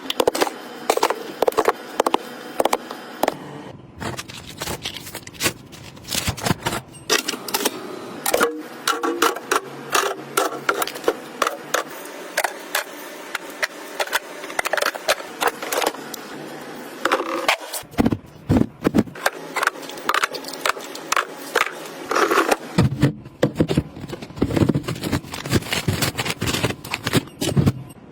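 Items being handled and set down during organizing: a busy run of irregular clicks, taps and scrapes, with rustling of packaging.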